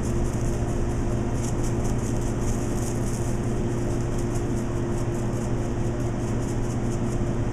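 Steady hum and air rush of kitchen machinery, unchanging throughout, with faint irregular high ticks over it.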